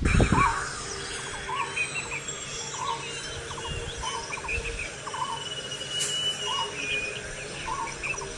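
Forest birds calling, one repeating a short call about once a second among other chirps, over a steady high insect drone. A gust of wind on the microphone dies away in the first half second.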